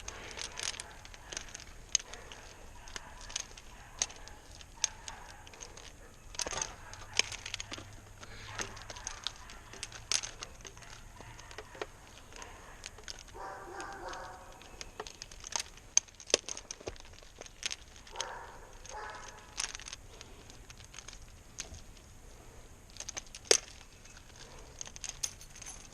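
Plastic packaging being pulled and crinkled by hand, with irregular sharp clicks and snaps as it is worked at without breaking.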